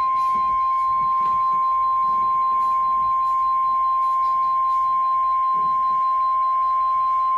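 NOAA Weather Radio's 1050 Hz warning alarm tone: one continuous, steady, high beep with light static behind it. It signals that a warning message follows, here a severe thunderstorm warning.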